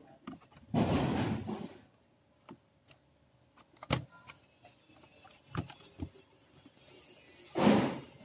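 Handling noise from an Acer 4710 laptop being turned over and opened on a workbench: a scraping rustle about a second in, a few sharp clicks, and a louder scrape near the end.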